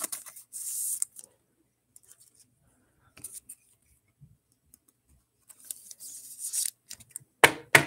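A paper trading card being slid into a plastic card sleeve and rigid plastic holder: two short high scraping hisses, soft ticks between them, then several sharp clicks near the end.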